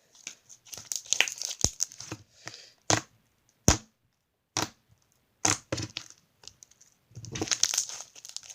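Slime squished and stretched by hand, giving irregular crackling and popping with a few sharp clicks, busiest about a second in and again near the end.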